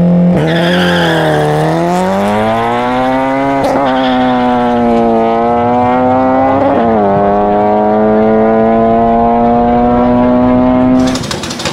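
Honda Fit's engine launching hard and accelerating down the drag strip. The note dips just after the launch, climbs again with breaks at two gear changes, then holds a steady pitch before cutting off abruptly near the end.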